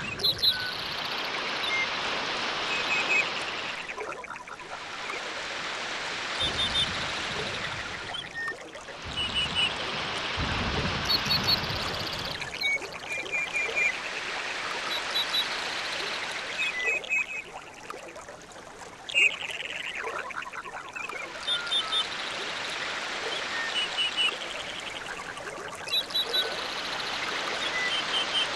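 Tropical island nature ambience: rushing water that swells and fades every few seconds, with a deeper rumble twice in the first half. Birds call over it in short, high, repeated chirping trills.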